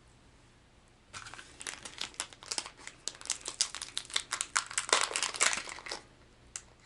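Small resealable plastic pack of fishing hooks crinkling and crackling as it is handled, starting about a second in. The crackles come thick and fast, loudest about five seconds in, then stop, with one more click near the end.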